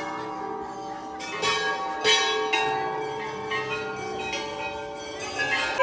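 Metal temple bells struck by hand several times, the strikes overlapping and each ringing on with a long, sustained tone.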